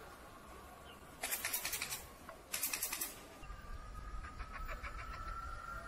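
Belt drive of an all-terrain electric skateboard, the motor pulley slipping on the belt: two short bursts of rapid clattering, about a second in and near the middle. Then a steady whine with fast ticking. The belt slipping on the motor gear is a common failure of this drive.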